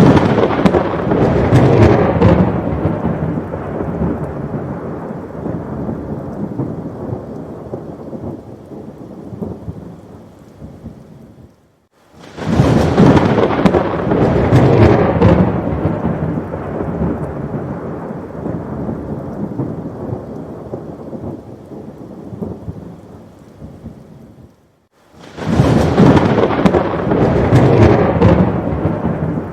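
Thunderstorm: rolling thunder over heavy rain. A loud rumbling crack rolls off over about ten seconds into steady rain. The sound drops out for a moment about 12 s in and again about 25 s in, each time starting again with another loud roll of thunder.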